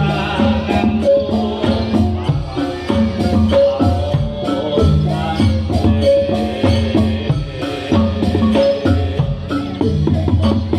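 Javanese reog dance accompaniment (Reog Bantul): drums and tuned struck percussion play a steady, repeating rhythmic pattern.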